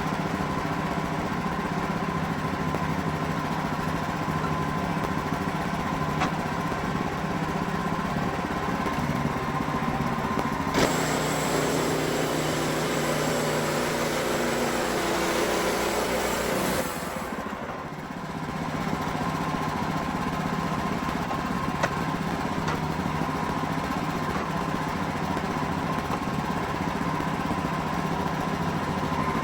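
Wood-Mizer LX55 band sawmill's engine running steadily, with a harsher, hissing stretch of about six seconds in the middle as the band blade saws through a pine log, then a brief dip in loudness.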